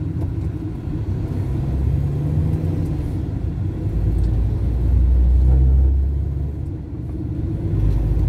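Car engine and road rumble heard from inside the cabin while driving: a steady low drone that swells to its loudest about four to six seconds in as the car pulls alongside and passes a slower minibus, then eases and rises again near the end.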